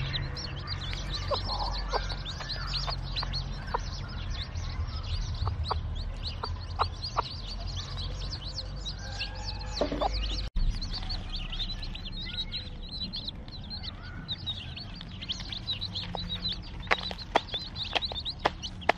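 Newly hatched Fayoumi chicks peeping rapidly and continuously, with short low clucks from the brooding hen now and then.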